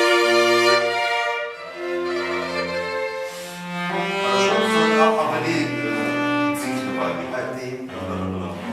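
Bowed string instruments, cello and violins, playing slow held notes over a low bass line, the notes changing about once a second.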